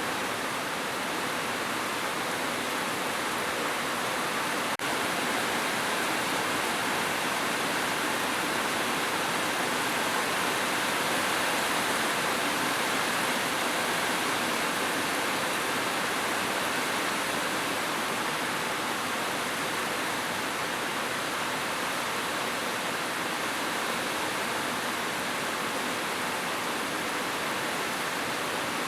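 Heavy rain falling on a roof, a steady dense hiss with no thunder, broken by a brief click and dip in level about five seconds in.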